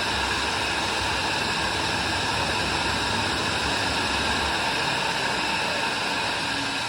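Steady jet engine noise from a Boeing 737-900 taxiing at idle thrust: an even, unbroken hiss with a faint whine.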